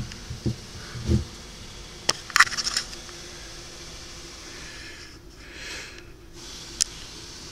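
Handling noise from carburetors and the camera: a few soft bumps in the first second or so, then a sharp click and a quick cluster of light metallic clicks about two seconds in, and one more click near the end, over a steady hiss.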